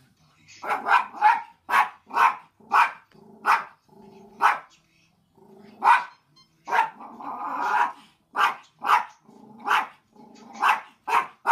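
Small curly-coated dog barking repeatedly at the television, about fifteen short, sharp barks coming one to two a second with brief pauses between runs.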